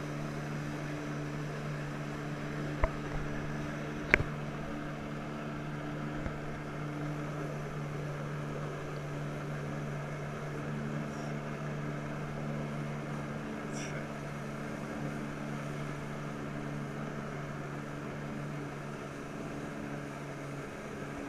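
Jet ski engine running at a steady pitch, pumping water up the hose to a flyboard, over a hiss of churning water. Two sharp knocks about three and four seconds in.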